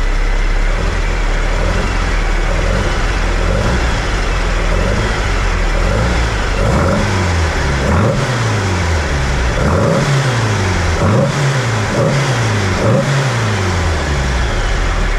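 Air-cooled VW bus engine on dual Weber 48 IDA carburetors, revved by hand at the throttle linkage in a series of quick rises and falls, about one a second, before settling back to idle near the end. The blips test whether both carburetors now open together after a slight bend to the linkage arm.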